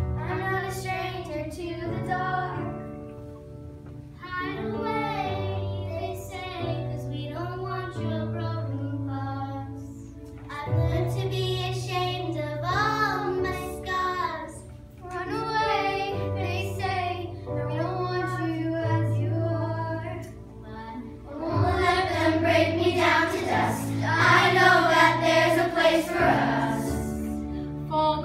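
Children singing a musical-theatre number over an instrumental backing track. Single voices carry the early phrases, and more voices join, louder and fuller, about three-quarters of the way through.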